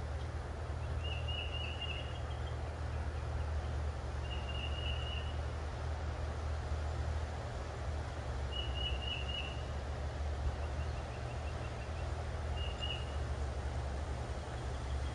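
Outdoor background noise with a steady low rumble, and a bird giving short, rapid trilled calls every three or four seconds.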